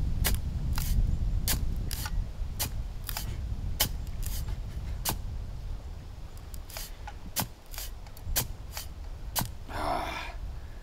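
A long-handled digging tool jabbed into sand again and again: a string of sharp, irregular clicks and knocks, about one to three a second, over a low rumble. A short vocal sound comes near the end.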